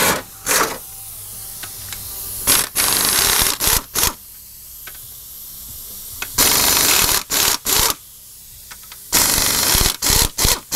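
Air ratchet running in short bursts with its exhaust hissing, spinning out the 16 mm engine-mount bolts, in about four groups of runs with pauses between.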